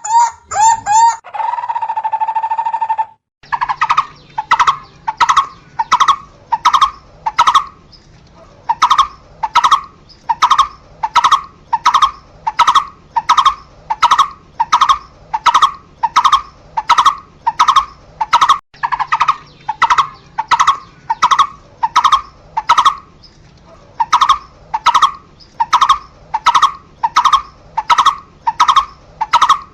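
Barbet calling: for the first three seconds, rapid notes and then a long held tone, which cut off abruptly. After that comes a steady series of single repeated notes, about three every two seconds, with two short pauses.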